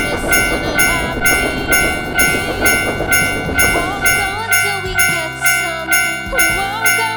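Japanese level-crossing warning bell ringing 'kan-kan' at an even pace of about two strikes a second, over the rumble of a passing train that stops about four and a half seconds in.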